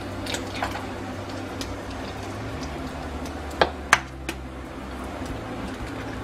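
Pans and utensils handled at the stove: a few light clicks, then two sharp knocks in quick succession a little past halfway, over a low steady hum.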